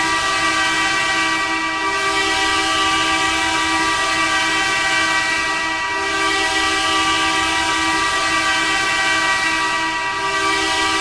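Bakersfield Condors arena goal horn, an air horn of the train-horn kind, blowing one long steady blast to signal a goal, with slight dips about every four seconds.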